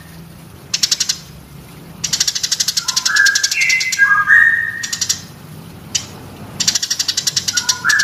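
Eurasian tree sparrow singing: bursts of very rapid chattering trills, with short clear whistled notes stepping down in pitch in the middle and again near the end.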